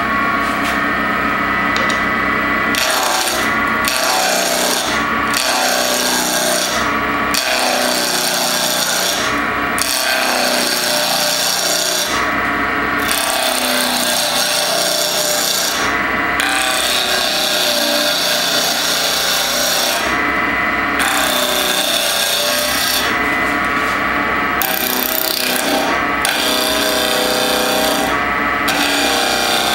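Wood lathe running while a gouge roughs down a spinning cocobolo block. The scraping cutting noise comes in passes over the steady motor hum, dropping out briefly every few seconds as the tool comes off the wood.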